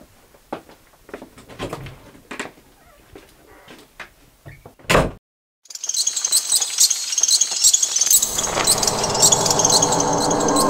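Light footsteps and small knocks in a quiet room, then a single sharp knock like a door shutting about five seconds in, followed by a moment of dead silence. Then a dense, high chirring of night insects, joined from about eight seconds by a sustained music chord.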